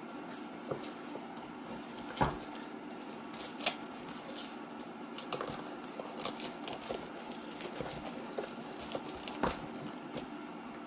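Irregular light clicks and rattles, as of the metal spikes and chains of ice cleats being handled, over a steady low hum.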